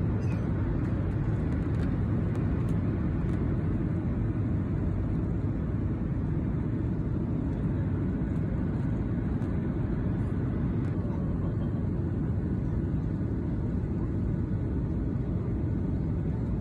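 Jet airliner cabin noise heard from a window seat during the descent to land: a steady, even rush of engine and airflow noise, heaviest in the low end.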